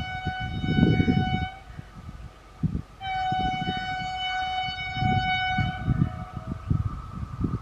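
Vande Bharat Express train horn sounding in two long steady blasts. The first is already sounding and stops about a second and a half in; the second starts about three seconds in and lasts about three seconds. A gusty low rumble runs underneath.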